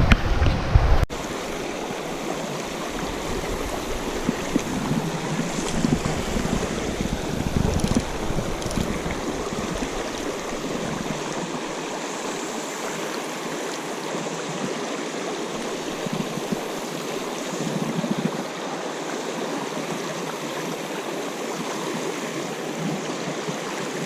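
Steady rush of flowing stream water. In the first second a low rumble of wind on the microphone cuts off abruptly.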